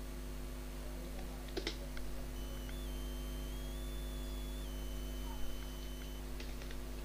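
Steady low electrical hum with a couple of soft computer clicks about a second and a half in, and a faint high thin whine that shifts in pitch a few times through the middle.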